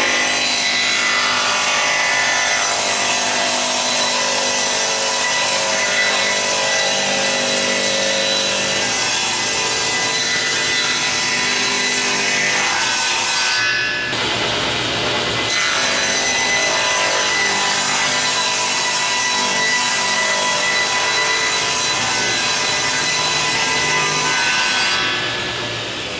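Table saw ripping a pine 2x8 lengthwise: the blade's steady cutting noise over the motor's whine. The cutting sound breaks off briefly about halfway through, then resumes, and eases near the end as the cut finishes.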